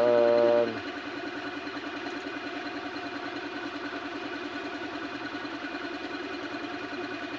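Engine idling steadily in the background, with an even rapid pulse.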